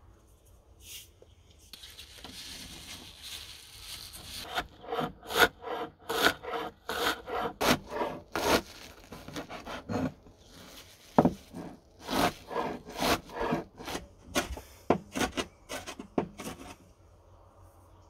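Chef's knife chopping fresh wild garlic leaves on a cutting board. A rustling scrape comes first, then sharp chops about two a second, with a short pause midway, stopping near the end.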